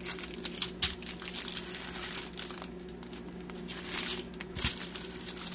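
Plastic bags of diamond-painting drills crinkling and rustling as they are handled, in irregular crackles with a couple of sharper snaps about a second in and near the end.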